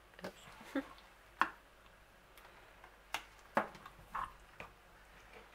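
A metal spoon tapping and scraping against a plastic tub while pressing thick beetroot purée over an egg: a handful of separate short clicks at irregular intervals.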